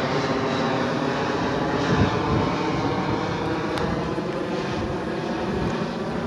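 A steady engine drone with a pitched hum, slowly fading toward the end, with a single thump about two seconds in.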